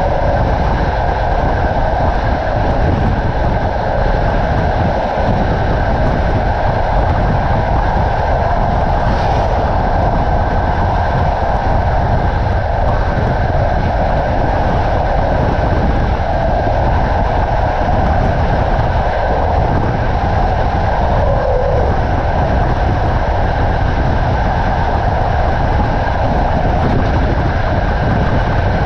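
Passenger train carriage running steadily along the track, with a continuous rumble and rush of wheels on rails, heard from the carriage window.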